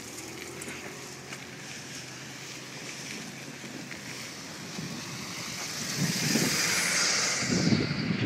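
Wind buffeting the microphone over a steady hiss, growing louder with gusty low rumbles over the last few seconds.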